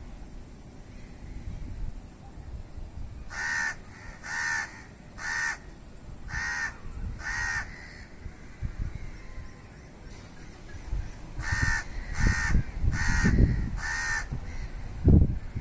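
A crow cawing in two bouts of short, evenly spaced harsh caws: five in a row, then a pause, then four more. Uneven low rumbling runs underneath, heaviest during the second bout.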